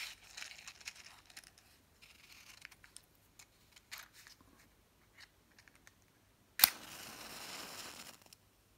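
Wooden match handled in a small matchbox with light clicks and rustles, then struck on the box: a sharp scrape-crack followed by about a second and a half of hissing as the match head flares, dying away near the end.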